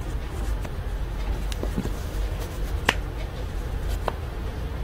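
Steady low background rumble with a few short sharp clicks, the loudest about three seconds in and another about a second later.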